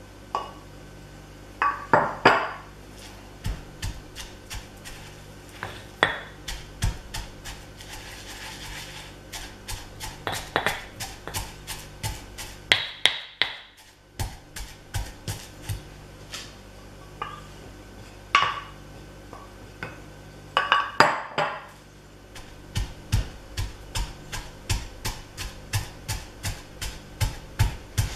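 Granite mortar and pestle pounding dried red chilli and grated coconut into sambol: a run of dull thuds, about two or three a second, with now and then a sharper clink.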